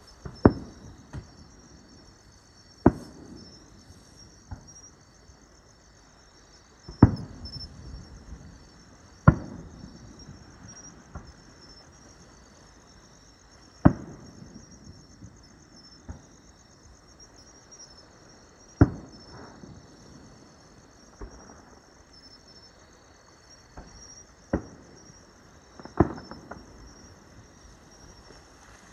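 Fireworks shells bursting overhead in single loud bangs a few seconds apart, about eight in all, each trailing off in a short rumble, with fainter pops in between. Insects chirp steadily throughout.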